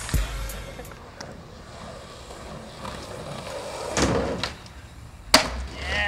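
Skateboard wheels rolling on pavement, with a short scrape along a wooden ledge about four seconds in and a sharp clack of the board hitting the ground about a second later.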